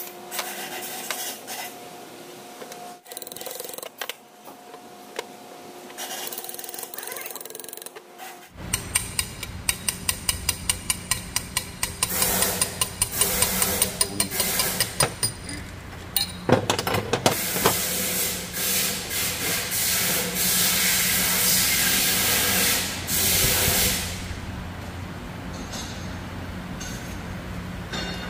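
Small clicks and taps, then a steady low hum that comes on suddenly about a third of the way in. Over the hum comes a fast run of clicks, about four a second, and then about twelve seconds of loud hissing that stops abruptly.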